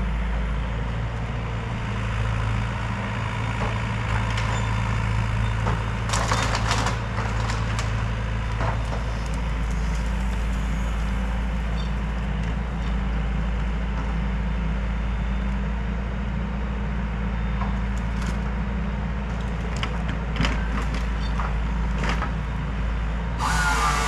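A machine engine running steadily at a constant speed, with a few knocks and cracks over it, and a louder rushing noise starting just before the end.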